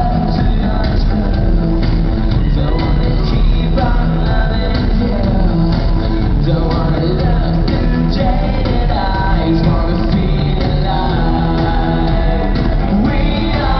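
Live rock band playing, with electric guitar, drums and singing, heard from the audience in an arena hall.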